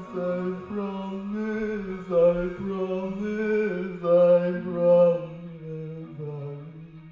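A single voice chanting in long held notes on nearly one pitch, the notes shifting a little about once a second, then sinking lower and fading out near the end.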